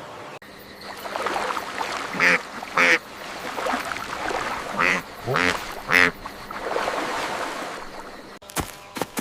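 A duck quacking about five times in separate calls over a few seconds, against a steady background hiss.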